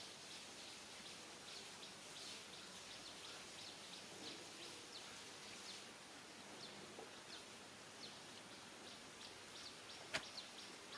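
Faint outdoor background with scattered brief, high chirps throughout, and a single sharp click about ten seconds in.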